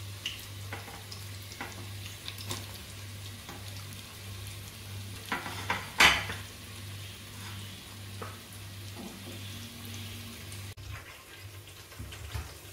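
Vegetables sizzling in hot oil in a pressure cooker, with scattered light knocks as cauliflower florets are dropped in, the sharpest about six seconds in. A steady low hum runs underneath.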